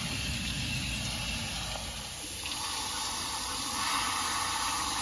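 Water running and splashing as it rinses out the cylinders of a seized Ford 289 V8, flushing out neutralised acid residue and debris. The sound of the flow changes a little over two seconds in.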